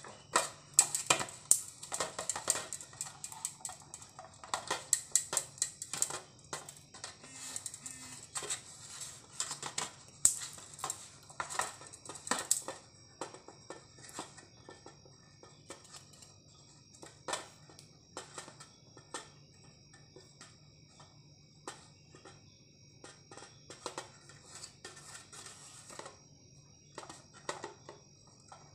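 Wooden spoon scraping and knocking against a metal pan while stirring sugar as it melts into caramel, over a steady low hum. The taps come thick and fast at first and thin out after about halfway.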